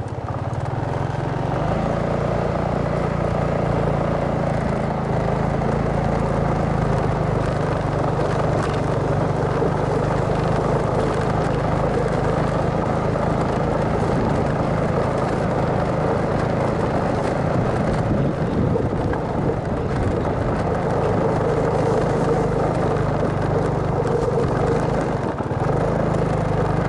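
Motorcycle engine running steadily at low speed, heard from on board the bike, with a brief dip in the engine note near the end.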